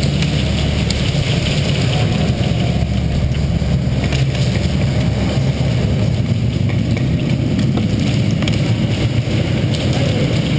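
Steady low rumble, with a few faint clicks scattered through it.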